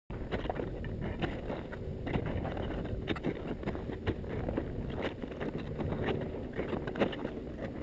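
Boots crunching in packed snow and trekking poles planting with short clicks, irregular steps of a climb, over a low rumble of wind on the microphone.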